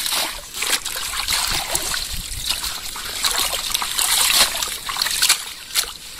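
Hands splashing and sloshing in shallow muddy water, scooping water hyacinth out of a net fish trap; irregular splashes with water running off the plants.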